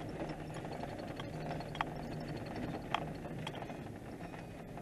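Vehicle interior while driving slowly over a bumpy dirt track: a steady low engine and road hum, with a few short knocks and rattles from the body, mostly about two to three and a half seconds in.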